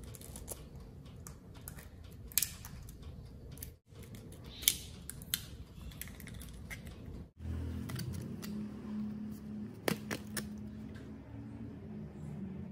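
Eggshells cracking with a few sharp clicks as eggs are broken into foil baking tins of batter. Later a steady low hum, with a couple of clicks, as a baked tin is handled by the oven.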